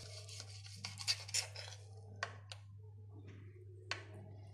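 Steel knife and fork cutting an omelette on a ceramic plate: the knife scrapes across the plate, with several sharp clicks of cutlery striking the china. A steady low hum runs underneath.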